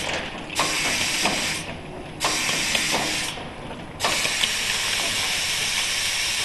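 Cap liner inserting machine running, with steady mechanical clicking and knocking under a hiss of air that comes on and cuts off in bursts about every one and a half seconds, the last one running on.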